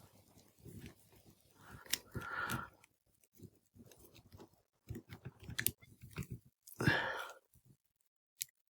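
Faint clicks and scrapes of hard plastic action-figure parts being handled and pushed together while an accessory is fitted onto the figure.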